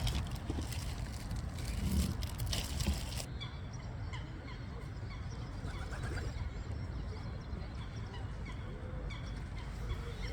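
Geese honking, many short calls overlapping, over a steady low background rumble.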